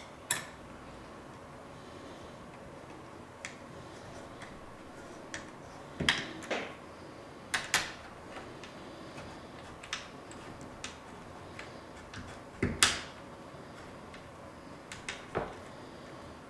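Irregular clicks and knocks of a small screwdriver and screws being worked on a metal server slide rail, about a dozen in all, over a faint steady hum.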